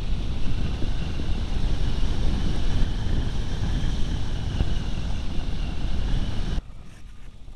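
Rushing airflow on the onboard camera's microphone of a Turnigy Rogue RC glider in flight, with a faint steady high whine. The rushing drops away abruptly near the end.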